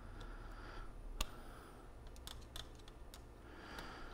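Light clicks and taps of hands and a screwdriver working on the sheet-metal tape mechanism of a Pioneer CT-50R cassette deck, with one sharp click about a second in and a quick run of clicks a little past two seconds.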